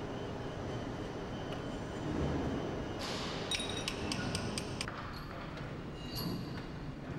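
Steady workshop background noise, with a quick run of light metallic clinks and pings a few seconds in and another near the end, from steel parts and tooling during the installation of a centrifugal compressor's diaphragm bundle.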